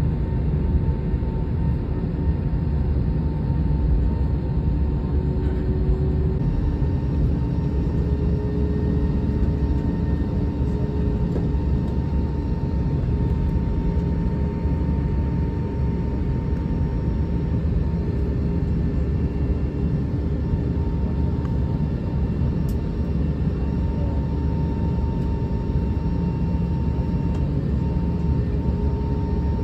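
Cabin noise inside an Airbus A321 taxiing after landing: a steady low rumble from the engines at idle and the rolling airframe, with faint steady humming tones over it.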